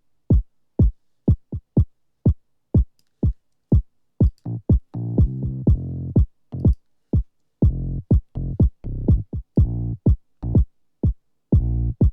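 Electronic house loop playing back from a sampler: a very short kick drum, cut and faded out so it stops abruptly, about twice a second. About four seconds in, a sustained bass and synth chord layer joins between the kicks.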